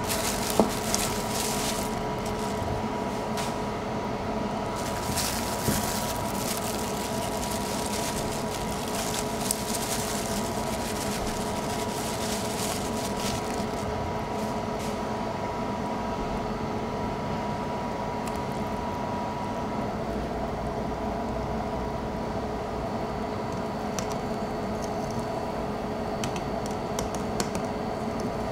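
Steady machine hum with a high, even tone, typical of kitchen equipment running, with a hissing rush through the first half and a few light knocks and clicks.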